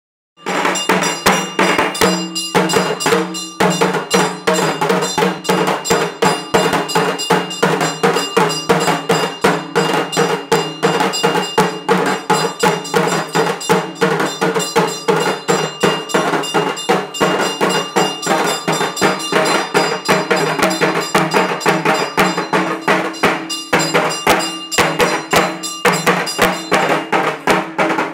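Loud, fast rhythmic percussion music: drum and metallic strikes several times a second over a steady low drone, starting abruptly just after the beginning.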